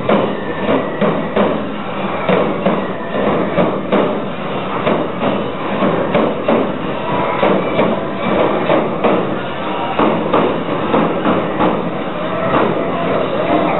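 Nebuta festival music: taiko drums and clanking hand cymbals struck in a steady rhythm, about two loud beats a second.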